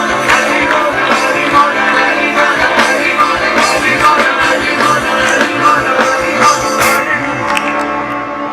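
Live band music, loud, with a steady drum beat under guitar and held notes; the drums stop about seven seconds in and the music thins out near the end.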